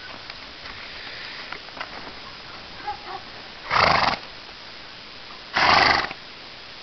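Horse blowing out hard through its nostrils twice, about two seconds apart, each a short loud rush of breath.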